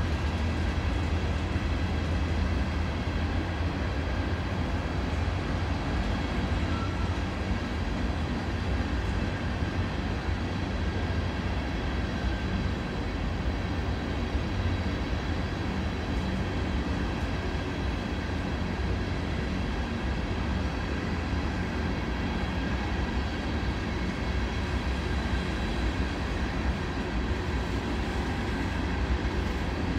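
Norfolk Southern freight train's covered hopper cars rolling past, a steady rumble of steel wheels on the rails with no break, carrying faint steady high tones.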